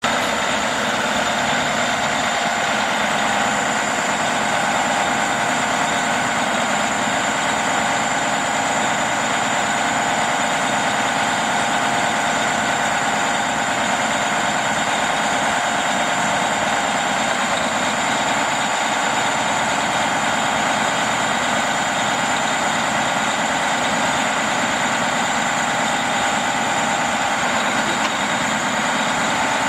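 Diesel engine of a Freightliner M2 114SD truck idling steadily with a constant whine over it, driving the hydraulics of its Fassi knuckleboom crane as the boom unfolds.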